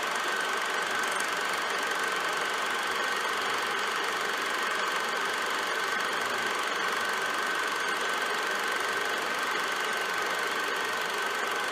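Movie film projector running: a steady mechanical whirr with a constant high whine.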